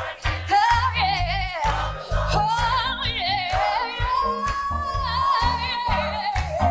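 Gospel choir and live band performing a soul song. A lead voice sings with heavy vibrato and holds one long high note in the middle, over a bouncing bass line and crisp drum hits.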